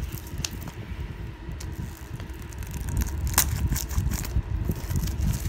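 Shrink-wrapped DVD case being handled and turned over: the plastic wrap crinkles and crackles with scattered clicks, a sharp one about three and a half seconds in, over low rumbling handling noise.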